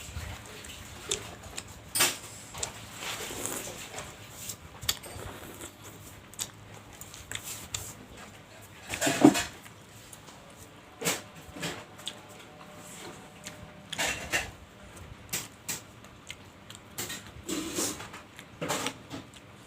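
Close-miked eating sounds from bakso meatballs being eaten: wet chewing and slurping, with scattered short clicks. The sounds come at irregular moments, the loudest about 9 seconds in.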